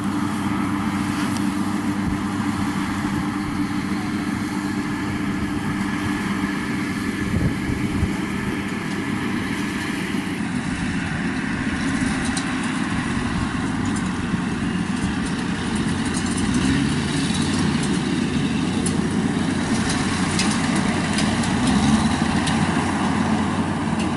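Yanmar 82V rice combine harvester running steadily under load while cutting and threshing rice, its diesel engine hum mixed with the clatter of the cutter and threshing drum. The pitch of the engine tones shifts about ten seconds in.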